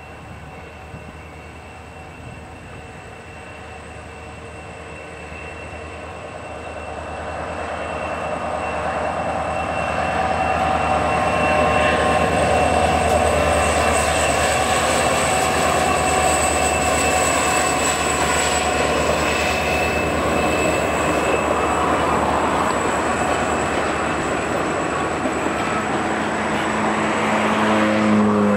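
EMD GT26MC diesel-electric locomotive with a 16-cylinder two-stroke engine, approaching and passing below. The engine grows steadily louder over the first ten seconds, then the rumble of the passenger coaches rolling over the rails carries on. A pitched tone comes in near the end.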